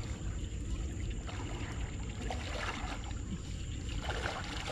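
Water splashing and sloshing as a person wades and drags a fishing net through shallow floodwater, over a steady low rumble.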